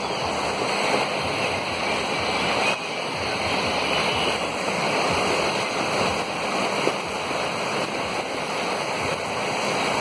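A torrent of muddy floodwater rushing across a road in torrential rain: a steady, dense rushing noise of flowing water and rain, with no breaks.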